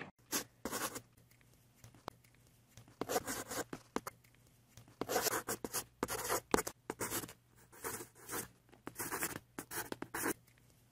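Pen scratching on paper in quick irregular strokes, a drawing sound, in clusters of short scribbles with brief pauses between them.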